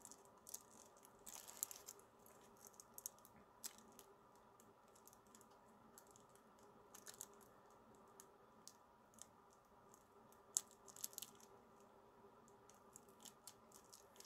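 Near silence: faint room tone with scattered small clicks and taps, some of them in quick little clusters.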